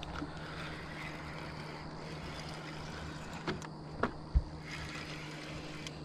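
Boat motor running steadily as a low hum, with water splashing and trickling. A few knocks around the middle, the loudest a dull thump about four and a half seconds in.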